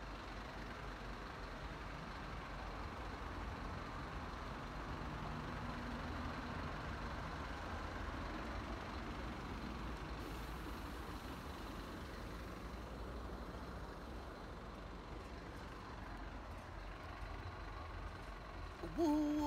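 Steady hum of city street traffic below, vehicles running and passing, swelling slightly partway through. A short, louder pitched tone comes right at the end.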